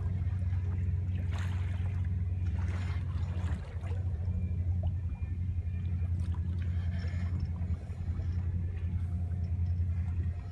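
A boat's engine running with a steady low drone as the boat moves through open water, with water swishing and splashing against the hull now and then.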